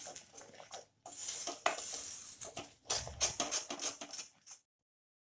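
Wooden spatula stirring and scraping thick, cooking jaggery syrup around a steel kadhai, in quick repeated strokes with short pauses. It cuts off abruptly about four and a half seconds in.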